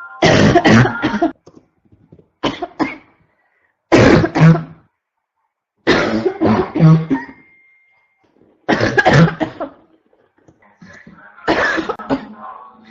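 A sick woman's barking cough, coming in repeated fits: about six bouts of several quick coughs each, one every second or two.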